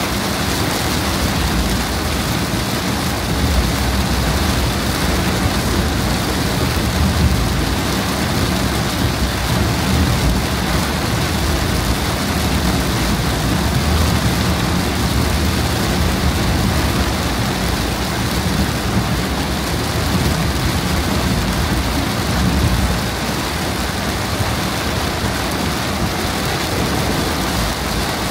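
Torrential rain drumming steadily on a car's roof and windshield, heard from inside the cabin, over a low rumble of tyres on the flooded road.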